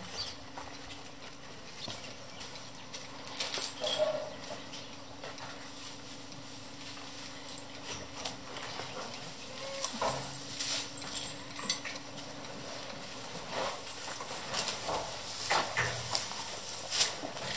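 Loose hay rustling and crackling in irregular bursts as it is carried by the armful and dropped into cattle feed troughs.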